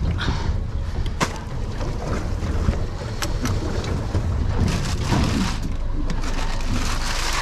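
Wind rumbling on the microphone aboard a small boat at sea, with a few sharp knocks as the icebox lid and hatch are handled and the rustle of a plastic bag of ice.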